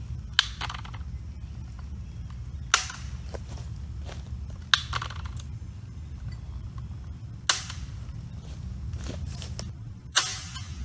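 Five sharp knocks, a couple of seconds apart, each with a short ring after it, over a steady low rumble.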